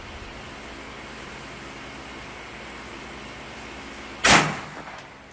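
A single .22 LR handgun shot about four seconds in, sharp and loud with a short ringing tail, fired over a chronograph. A steady low hiss of background noise comes before it.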